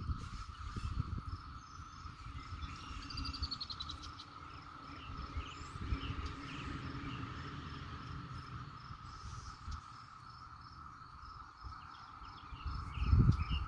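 Insects trilling steadily in the background, with a high, evenly repeated chirp over it. Low rumbling noise runs underneath, with a few loud bumps near the end.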